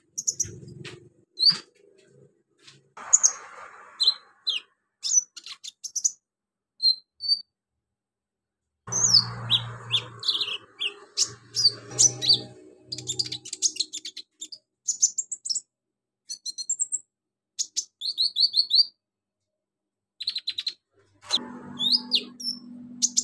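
Male brown-throated sunbird (konin) singing in bursts of quick, high chirps and trills with short pauses between, a song packed with mimicked calls. A low steady hum starts near the end.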